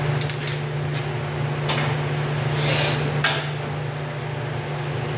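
A metal hood prop rod being set under a Dodge pickup's raised hood: several short metal scrapes and clinks, with a longer rasping scrape about halfway through, over a steady low hum.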